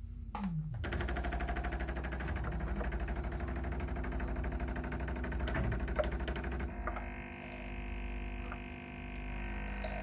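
Bosch Tassimo pod coffee machine's pump running with a rapid buzzing pulse, starting about a second in, as it dispenses milk from the latte's milk pod. About two-thirds of the way through, the sound changes to a steadier hum.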